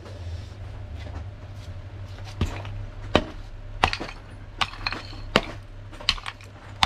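Hammer smashing old clay (terracotta) sewer pipe into pieces: a run of about seven sharp, clinking blows, roughly one every three-quarters of a second, starting about two seconds in.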